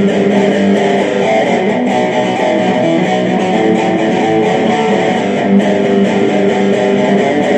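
Electric guitar playing a rock riff, an instrumental passage with steady, loud, sustained chords and no singing.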